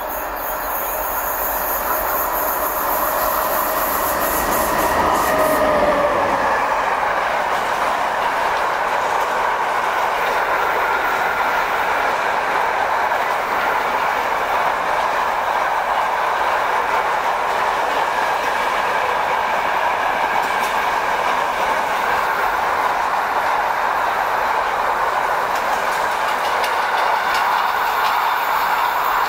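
Container freight train behind an electric locomotive running past close by: a steady rolling rumble of wagon wheels on the rails, with faint high squealing tones from the wheels on the curve. It grows louder over the first six seconds as the train draws level, then holds steady as the wagons pass.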